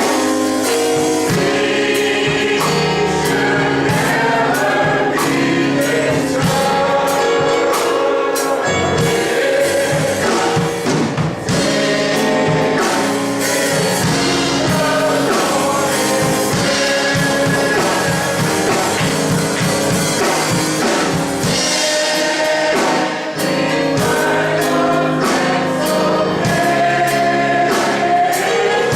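Gospel choir singing with a band, with drums keeping the beat.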